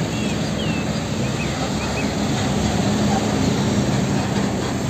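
Heavy fuel tanker truck's diesel engine running steadily as it drives, a low hum under a wash of road and traffic noise.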